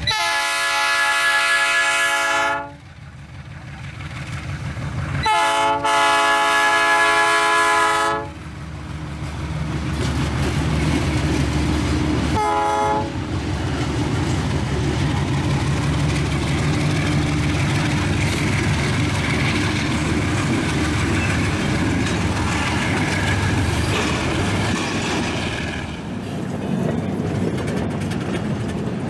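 Diesel freight locomotive sounding its multi-tone air horn: a long blast, a second long blast about five seconds in, and a short toot around twelve seconds. Then the locomotives' engines run past, followed by a long train of wagons rolling by, easing a little near the end.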